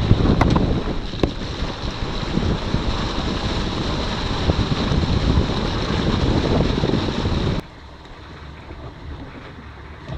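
Wind buffeting the microphone over the wash of sea on a sailboat moving at good speed under sail. About three quarters of the way through, the noise drops suddenly to a quieter, even rush of wind and water.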